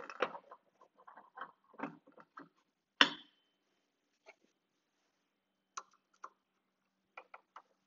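Hand work on the metal saw guard and blade arbor of a Shopsmith Mark V: scattered clicks, rattles and scrapes, with one sharp metallic clank about three seconds in that rings briefly. The motor is not running.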